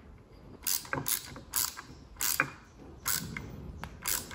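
Short metallic clicks and rasps, about two a second and unevenly spaced, as a grease nipple is threaded and tightened into the hub of a mower's large steel drive gear.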